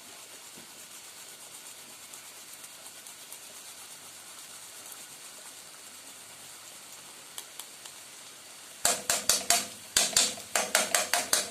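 Chopped onion and garlic sizzling softly in a frying pan over the heat. About nine seconds in, a utensil starts knocking and scraping against the metal pan in a quick series of ringing clacks as the food is stirred.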